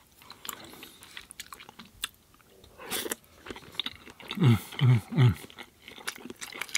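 Close-miked chewing of pasta, with wet clicking and smacking mouth sounds, a short slurp about three seconds in, and three short falling 'mmm' hums of enjoyment a little later, the loudest sounds here.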